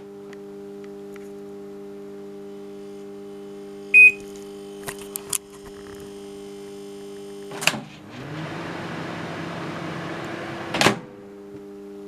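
Samsung commercial microwave oven powered up with its power relay contacts welded shut: the high-voltage transformer hums steadily. A short beep comes about four seconds in, followed by a few light clicks. From about seven and a half to eleven seconds, a louder, rougher buzz runs between two sharp clicks.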